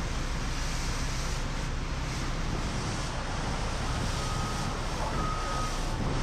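Heavy construction machinery running with a steady low engine rumble under a wind-like hiss. A reversing alarm beeps twice in the second half.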